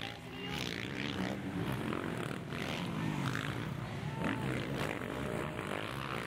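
Motocross dirt bike engines revving as the bikes race past, the pitch rising and falling.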